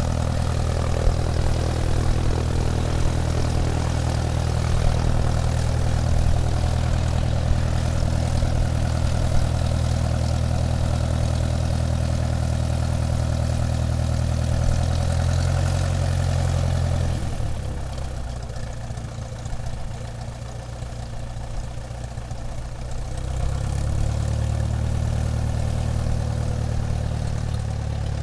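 Airplane engines running steadily at taxi power, a low drone that dips about two-thirds of the way through and rises again a few seconds later.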